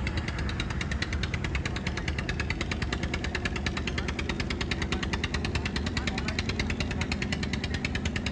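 Small wooden river boat's engine chugging steadily, a rapid, even run of beats.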